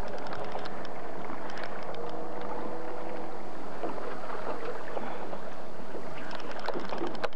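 Sport-fishing boat's engine running steadily, heard through wind and sea noise on a camcorder microphone, with a few sharp clicks near the end.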